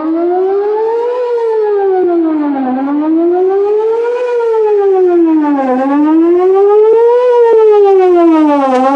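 Outdoor tornado warning siren sounding a wail during a test. Its pitch glides steadily up and down, peaking three times, about one rise and fall every three seconds, loud and unbroken.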